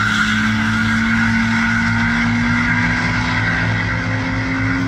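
Turbocharged 4.2-litre Atlas inline-six of a Chevrolet Trailblazer at full throttle down a drag strip, its engine note climbing steadily through one gear as it pulls away.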